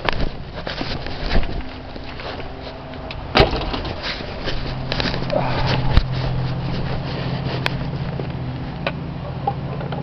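A car: a few sharp knocks like a door shutting, then the engine running with a steady low hum from about halfway.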